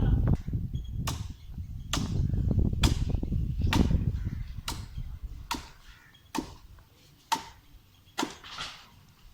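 Steady hand chopping of coconut palm wood: about nine sharp blows, roughly one a second, over a low rumble that dies away about halfway through.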